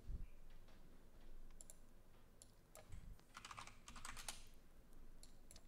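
Faint typing on a computer keyboard: scattered keystrokes, with a quicker run of keys about three and a half seconds in.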